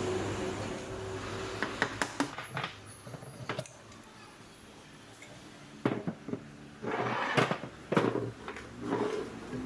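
Metal clinks, knocks and scrapes of tools and parts being handled, irregular and scattered, after a steady hiss in the first couple of seconds.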